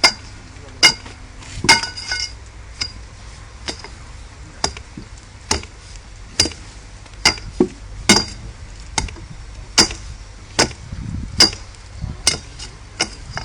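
Steady hammer blows on metal, a sharp ringing clink a little more than once a second, keeping an even beat.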